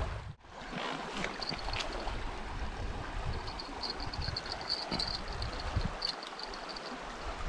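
A stream running over a shallow bed, an even rushing of water. From about three seconds in, a faint high chirping repeats rapidly in the background.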